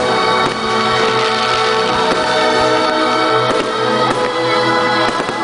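Loud music with long held chords.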